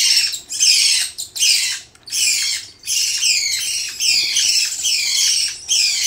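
Nestling cockatiels begging while being spoon-fed hand-rearing formula: a harsh, rasping food call, each one falling in pitch, repeated about twice a second.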